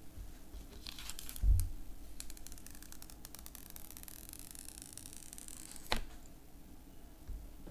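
The white protective paper cover being peeled off an iPhone 12 Pro's screen: a few clicks and a thump about a second and a half in, then a long crackling peel that ends with a sharp snap near six seconds in as the sheet comes free.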